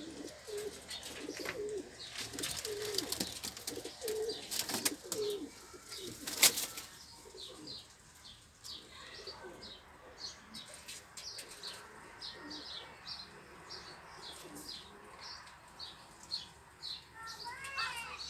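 Domestic pigeons cooing in low notes and flapping their wings, with one sharp loud clap about six seconds in. After that, a steady series of short high chirps repeats about once or twice a second.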